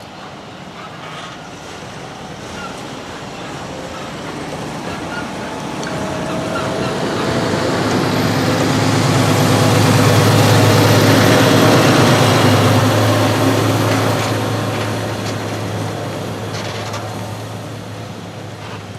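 Heavy farm vehicle driving past at corn silage harvest: its diesel engine hums steadily, growing louder to a peak about halfway through and then fading away as it moves off.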